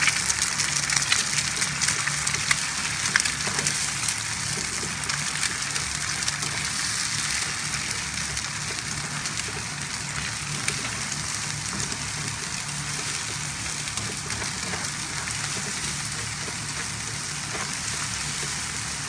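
Eggs and garlic sizzling and crackling in hot rice bran oil in a nonstick frying pan while a spatula scrambles them. The sizzle crackles most at first and slowly dies down as the eggs set.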